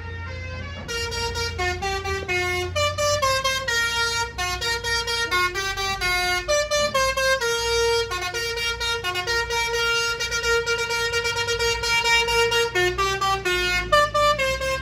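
Multi-note musical truck horn ('telolet' horn) playing a tune of quick stepping notes, starting about a second in, over the low rumble of a diesel truck engine.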